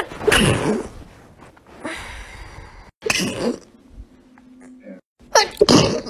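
People sneezing, several loud sneezes in quick succession: one at the start, one about three seconds in, and a close pair near the end.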